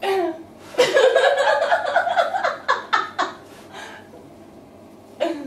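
Women laughing: a long, high laugh that starts about a second in and breaks into quick pulses, then short breathy gasps and a brief lull before another burst of laughter near the end.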